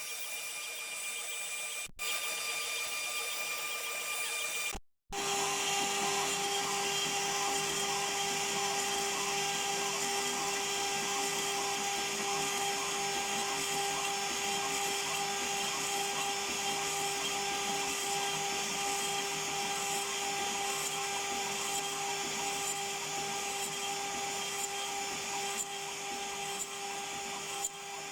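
CNC router spindle running with a steady whine as it mills beech on a 4-axis machine. The sound drops out briefly about five seconds in and comes back with a different steady tone.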